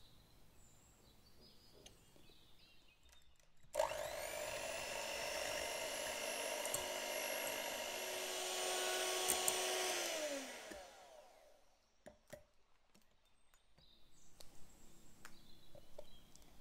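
Electric hand mixer with twin beaters whipping cream in a glass bowl. The motor starts suddenly about four seconds in, runs at a steady pitch for about six seconds, then winds down with a falling pitch; a few faint clicks follow.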